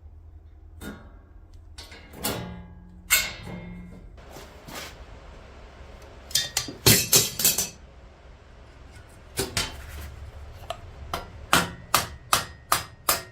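Hammer blows on steel while riveting legs to a stainless steel cooking plate: a few scattered strikes, a loud cluster in the middle, then a run of steady blows in the second half that quicken toward the end.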